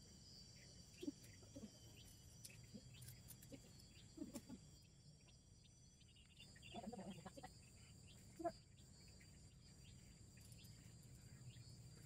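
Near silence: faint outdoor ambience with a steady high-pitched hum and a few brief faint sounds, the sharpest about a second in and about eight and a half seconds in.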